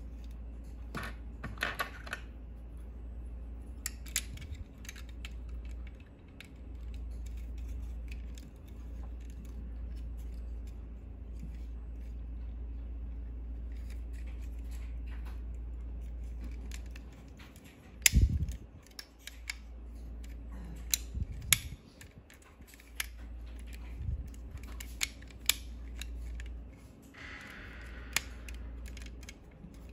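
Plastic Megatron transforming figure being handled and worked: irregular clicks and snaps of its plastic parts and joints, with one much louder snap a little past the middle and brief rubbing scrapes near the start and near the end, over a steady low hum.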